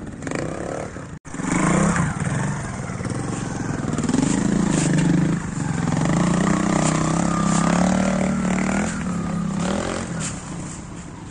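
Trials motorcycle's single-cylinder engine running and revving under throttle as the bike picks its way up a section, the engine note rising and falling. The sound drops out briefly about a second in, then fades near the end.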